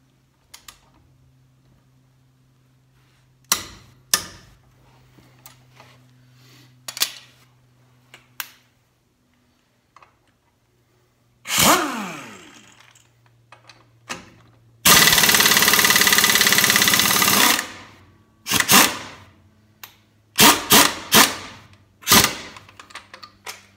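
Air impact wrench hammering for about two and a half seconds to break loose a lug nut torqued to 140 ft-lb, then several short bursts running it off. Before that come scattered knocks and clicks of tools being handled, and a brief spin of the wrench that winds down.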